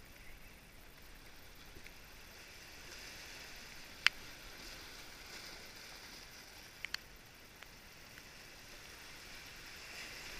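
Small waves washing over shoreline rocks, a steady hiss that swells a little now and then. A single sharp click about four seconds in and two faint clicks near seven seconds.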